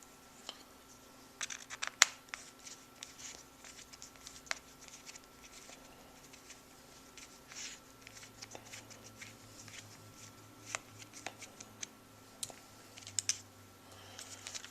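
A hand driver backing small screws out of a Traxxas T-Maxx RC truck's plastic chassis, with parts being handled: scattered light clicks and scrapes, the sharpest click about two seconds in.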